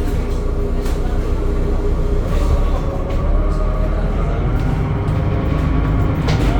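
The DAF diesel engine of a Temsa Avenue LF 12 city bus running under way, with a steady low rumble. The engine note rises a little a couple of seconds in. A few short knocks come through about a second in, at about two and a half seconds, and near the end.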